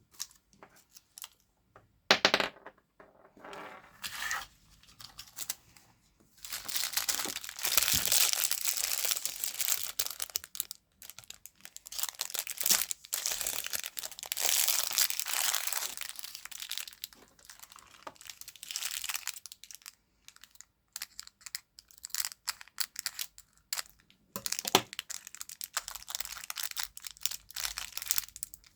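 Plastic candy wrapper crinkling and tearing as a sweet is unwrapped by hand, in long stretches of dense crackling with short pauses, after a sharp click about two seconds in.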